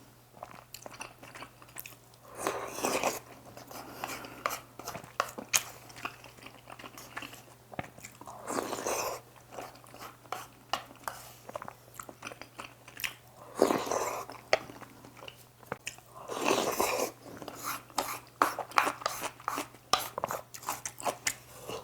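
Close-miked eating of spicy squid jjambbong instant noodles mixed with rice: wet chewing with many small mouth clicks and smacks, and four longer, louder sounds spaced a few seconds apart. A faint steady hum runs underneath.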